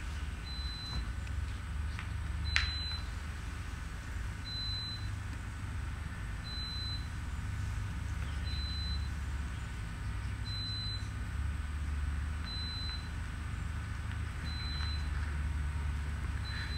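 A short, high electronic beep repeating evenly about every two seconds over a steady low rumble, with one sharp click a couple of seconds in.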